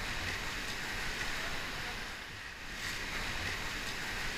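Steady rush of whitewater river water, with low wind rumble on the microphone; it eases slightly about halfway through.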